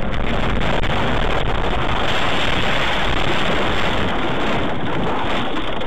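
Loud, continuous rushing and rumbling noise of a car leaving the road and ploughing into a grassy roadside field, with grass and dry stalks brushing against it. The noise grows louder about two seconds in.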